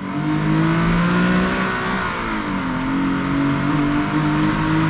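Nissan Skyline V36 sedan's 3.7-litre V6 running at steady throttle on the move, its note dipping in pitch about two seconds in and coming back up, over road noise.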